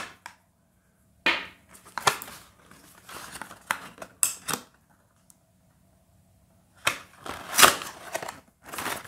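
Thin white cardboard packaging insert being handled and folded by hand, giving short bursts of scraping and rustling. There is a near-quiet pause about halfway through, and the loudest crackles come near the end.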